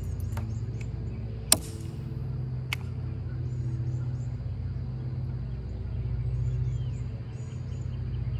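Fishing reel being cranked steadily through a lure retrieve, a low whirring with a fast flutter. There is a sharp click about a second and a half in and a fainter one just under three seconds in, and small birds chirp faintly.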